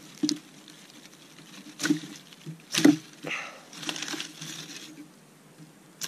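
Chinese ferro rod struck with a scraper over birch-bark tinder: several sharp scrapes, the loudest about three seconds in, followed by longer rasping strokes.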